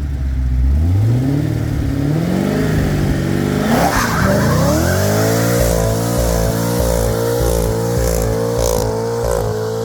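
Corvette Z06 LS7 V8 in a donor go-kart revving up over about four seconds, then held at high revs with a wavering pitch, as in a burnout.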